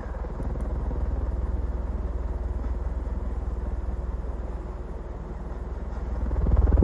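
Fasco Heat Cycler ceiling fan running steadily on high speed: a low rumble of the blades moving air. It runs quiet, and it swells briefly louder near the end.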